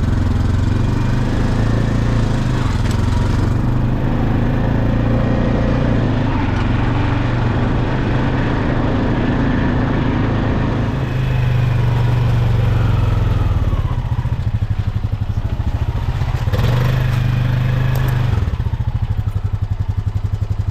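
A motor running loudly and steadily with a deep rumble, turning to an even pulsing near the end.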